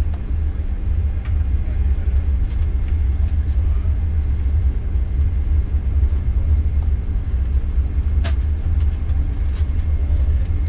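Cabin noise of a McDonnell Douglas MD-83 taxiing: a steady low rumble from the rolling aircraft and its rear-mounted Pratt & Whitney JT8D engines at taxi power, with a faint steady whine over it. A sharp click sounds about eight seconds in.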